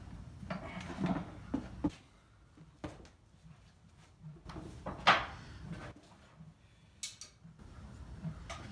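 Scattered knocks and clunks of farrier work: the draft horse's hoof set down off the hoof stand, then metal shoeing tools handled on a wooden workbench, with one sharp loud clatter about five seconds in.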